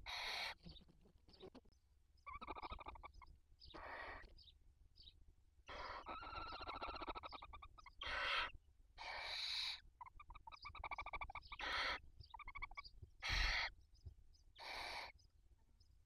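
Young barn owl chicks begging while the adult feeds them: a string of about ten short hissing screeches and rapid rasping chitters, each lasting up to about a second and a half.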